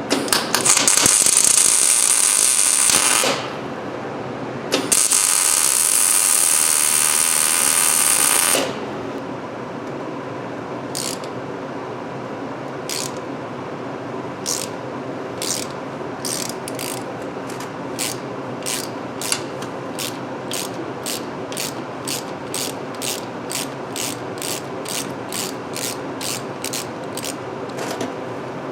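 Two bursts of welding crackle, about three and four seconds long, as a nut is welded onto a broken exhaust manifold stud. After that comes a ratchet clicking, at first single clicks about a second apart, then speeding up to about two a second, as the welded-on nut turns the broken stud out of the cast-iron cylinder head.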